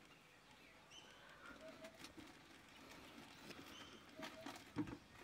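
Faint birdsong: a dove cooing in short paired notes that repeat every two to three seconds, with other birds giving short higher calls. A single soft knock near the end.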